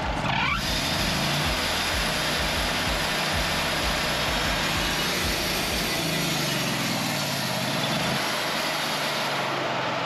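Wood-Mizer LT40 portable sawmill's engine running steadily. The mill's hydraulics and carriage drive are running slow, which the owner puts down to the drive motor not getting enough power, or to the cold.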